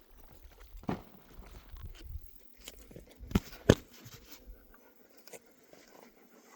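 Scattered clicks and knocks over low rumbling handling noise, with two sharp knocks close together about three and a half seconds in.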